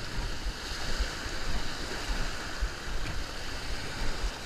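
Surf washing in and out over the sand, with wind buffeting the microphone in low rumbles.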